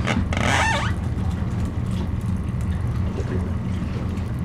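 An engine running steadily, a low drone.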